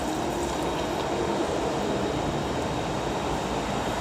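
Water running steadily as pig lungs are washed, rinsing the blood out of them.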